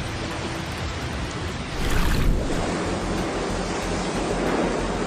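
Rushing water: a steady wash of noise with a louder surge about two seconds in, lasting about half a second.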